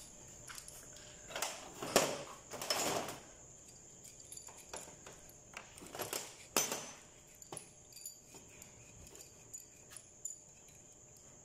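Metal parts and loose bolts clinking and knocking on a steel workbench as a diesel injection pump is handled, with sharper knocks about two, three and six and a half seconds in.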